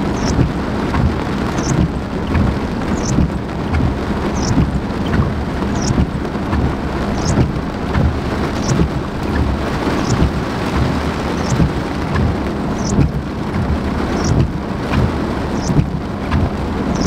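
Heavy rain from a summer thunderstorm pouring down while wind tosses the trees, with a low rumble running beneath it. A short, high chirp repeats about every second and a half.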